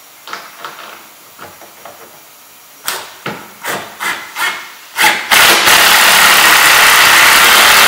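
Cordless impact driver driving a screw into a threaded insert in a plastic base: a few short trigger pulses starting about three seconds in, then from about five seconds it runs loud and steady as the screw goes down.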